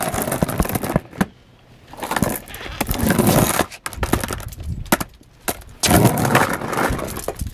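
Skateboard wheels rolling over concrete paving slabs, a rumble with sharp clicks, swelling and fading as the board passes. It is loudest from about six seconds in, when the board rolls up close.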